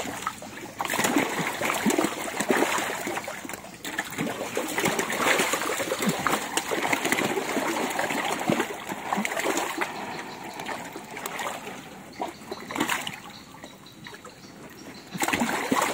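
Thousands of toman (giant snakehead) fish splashing and thrashing at the water's surface as they feed. It is a busy, continuous splashing that eases off for a couple of seconds near the end, then picks up again.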